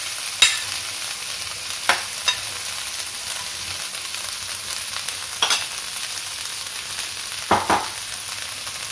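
Boiled black chickpeas (kala chana) sizzling in hot ghee and fried spices in a kadhai as they are spooned in from a ceramic bowl. Four sharp clicks of the spoon against the bowl and pan sound over the steady hiss.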